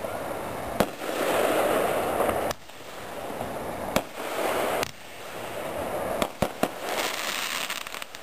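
Brothers Mini Rig 12-shot firework cake firing: about five sharp bangs, the last three in quick succession around six seconds in, each followed by a second or two of hissing noise.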